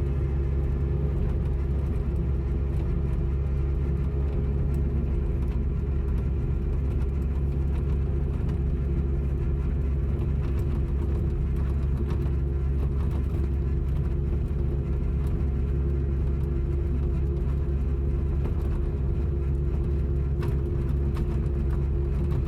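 Kubota KX080 mini excavator's diesel engine running at a steady, even pitch, a continuous low drone.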